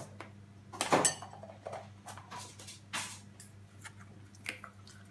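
Scattered rustles and clicks of a surprise egg being handled and opened, the loudest about a second in, over a faint steady low hum.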